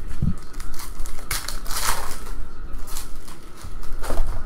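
Foil wrapper of a trading-card pack crinkling and tearing as it is ripped open, loudest about two seconds in, with a few light clicks of cards being handled.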